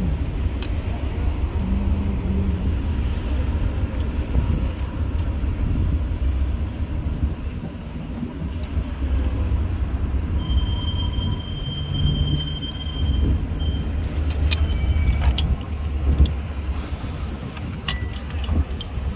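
Steady low vehicle rumble. A thin high tone holds for about three seconds midway, and a few sharp clicks come near the end.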